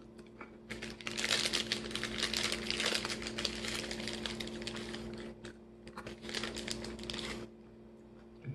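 Close-up crunching and chewing of candied pecans: a dense run of small, crisp cracks from about a second in until near the end, over a faint steady hum.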